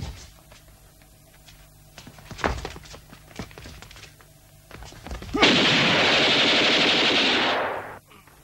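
A long burst of automatic gunfire lasting about two and a half seconds, starting a little past halfway, after a few scattered soft knocks and thuds.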